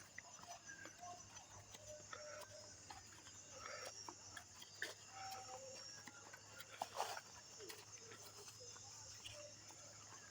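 Faint night ambience: insects trilling steadily at a high pitch, with scattered soft clicks and chirps and a couple of louder brief knocks about five and seven seconds in.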